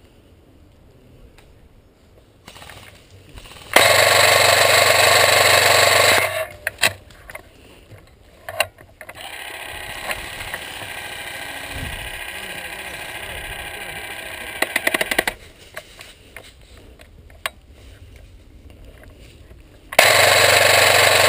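Airsoft M249 SAW electric gun firing two long full-auto bursts, each about two and a half seconds, one about four seconds in and one near the end. Both start and stop abruptly. Between them is a quieter, steadier rattling stretch and a few scattered clicks.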